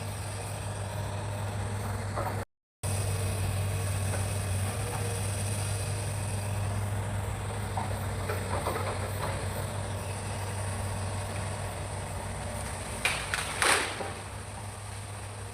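Hitachi excavator's diesel engine running steadily. It cuts out for a moment a little before three seconds in, and a few sharp metallic knocks come near the end.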